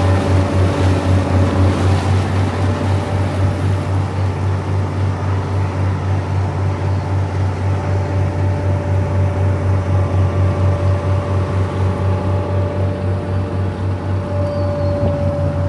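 Tour boat's engine running steadily at cruising speed, a low pulsing drone.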